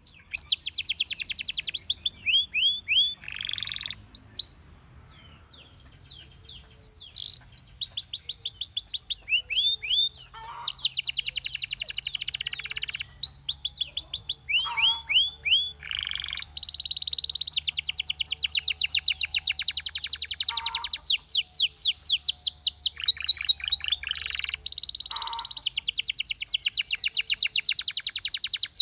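Canary singing in rapid trills of repeated notes, phrase after phrase with short breaks between them, with a quieter pause about four to seven seconds in.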